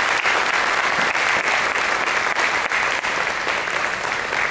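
An audience applauding, dense steady clapping.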